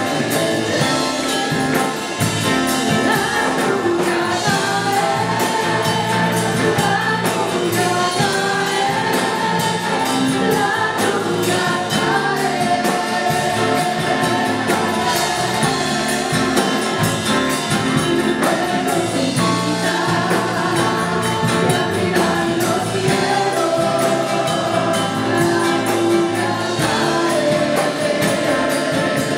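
Live Spanish-language worship song: women singing together into microphones over electric and acoustic guitar, playing on steadily.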